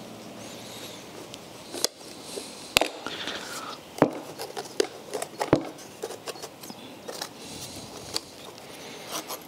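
A handful of sharp metallic clicks and taps, spread out with gaps between them, with faint scraping, as the sheet-metal band clamp around an old starter motor's housing is loosened and slid off to uncover the brushes.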